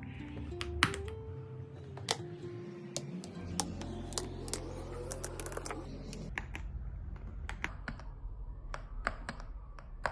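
Irregularly spaced single keystrokes on an AULA F75 mechanical keyboard, sharp clicks a fraction of a second to over a second apart, as keys are pressed to step through its backlight modes. Soft background music plays under them.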